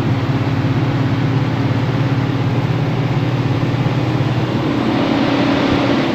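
Engine of a moving road vehicle running steadily at speed, with wind and road noise; its hum rises a little near the end.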